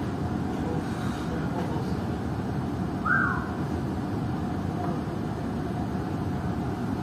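Steady rushing noise of storm wind and heavy seas heard from the bridge of a bulk carrier in a hurricane, with a brief falling tone about three seconds in.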